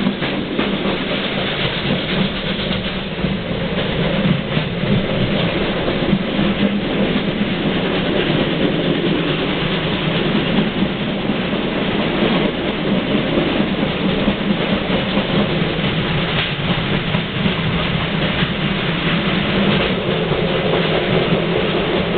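Steam-hauled heritage train running on the rails: a steady rumble and rattle with faint wheel clicks.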